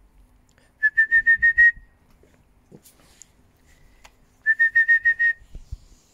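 Two quick runs of high whistled chirps, about seven short notes each at roughly eight a second and rising slightly in pitch: one about a second in, the other about four and a half seconds in.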